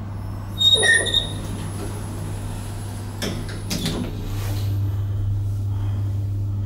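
TH Hissi traction elevator: a short electronic beep about a second in, then the car's automatic doors sliding shut with a bump around three to four seconds in, followed by a steady hum as the car starts to move.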